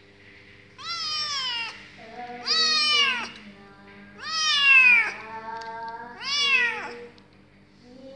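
A kitten meowing four times, each meow rising and then falling in pitch, with short gaps between.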